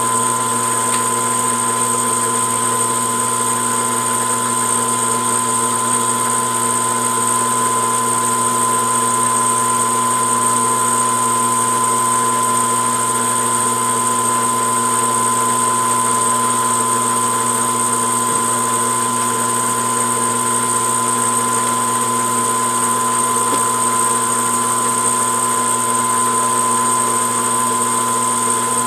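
Metal lathe running steadily under power while single-point threading a rifle barrel's muzzle, its motor and gearing giving a constant high whine.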